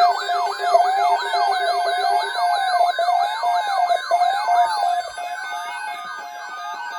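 Several electronic sirens sounding together, wailing and yelping with pitches sweeping up and down over a steady tone. They drop somewhat in level about five seconds in.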